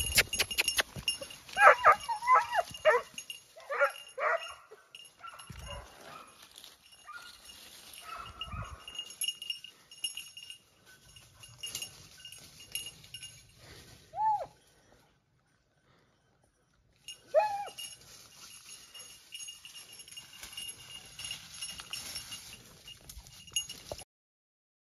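Six-month-old hunting dog puppy giving short, high yelping barks in a quick cluster, then two single yelps later on, with rustling through dry scrub between them.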